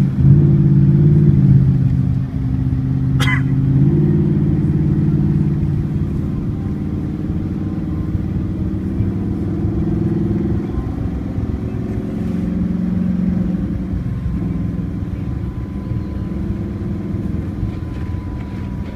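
Audi R8's V10 engine running at low, fairly steady revs while the car is driven, its pitch stepping down and back up in the first few seconds. There is a single sharp click about three seconds in.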